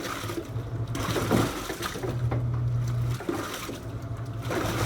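Portable washing machine agitating in its wash cycle: the motor hums in stretches of about a second with short breaks between, over water sloshing in the tub.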